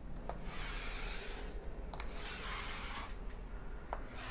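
Chalk scraping across a chalkboard as long straight lines are drawn, a dry scratchy hiss in strokes of about a second each. Each stroke starts with a light tap of the chalk on the board, about three times.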